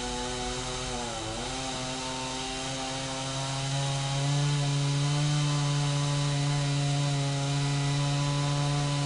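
Chainsaw running at high revs. The engine note dips twice in the first second and a half, then holds steady, with a deeper hum that grows louder from about three and a half seconds in.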